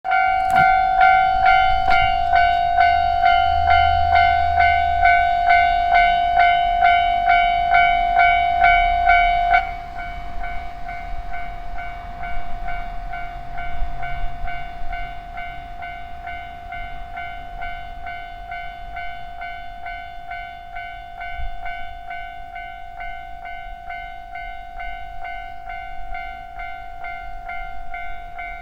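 Japanese level-crossing alarm bell ringing, a repeated electronic clang just under twice a second. About ten seconds in it drops sharply in volume and keeps ringing more quietly. A low rumble sits under it during the loud part.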